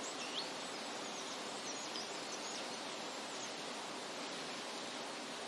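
A steady rushing outdoor background noise, with a few short, high bird chirps in the first couple of seconds.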